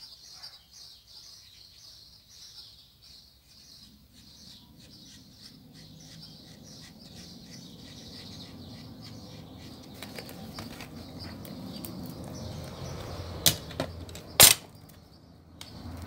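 Quiet handling of a foam disc and a glue bottle over a low background rumble, then two sharp knocks on a wooden tabletop about a second apart near the end, as things are set down.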